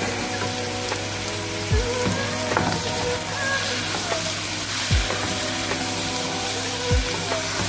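Raw chicken pieces and onions sizzling in hot oil in a nonstick pot, stirred with a wooden spoon. Background music with a few deep thumps plays throughout.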